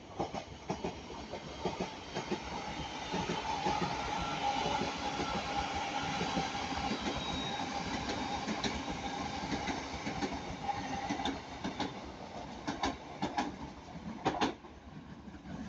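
Passenger train passing close by: its wheels click over the rail joints and a steady whine runs under the rumble for much of the pass, with a cluster of sharp wheel clicks near the end.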